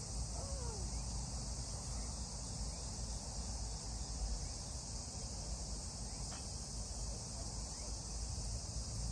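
A steady, high-pitched chorus of insects droning in the grass, over a low, uneven wind rumble on the microphone.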